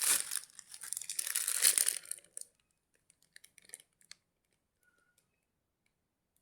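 Packaging being crinkled and torn open by hand for about the first two seconds, then a few faint handling ticks.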